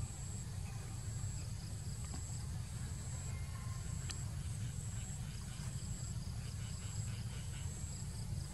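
Outdoor insects chirping in a high, evenly repeating pattern over a steady low rumble, with a single sharp click about halfway through.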